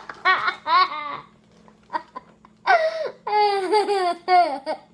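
A young boy laughing hard: high-pitched peals of laughter in two bouts, a short one at the start and a longer one from about two and a half seconds in.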